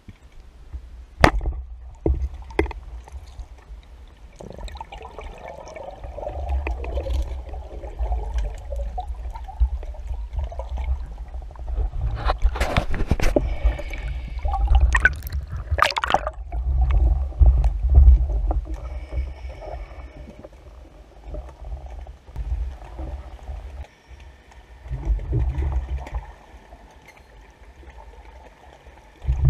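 Muffled water movement and handling noise heard through an underwater camera housing on a speargun: a low sloshing rumble with scattered sharp knocks and clicks, densest about halfway through.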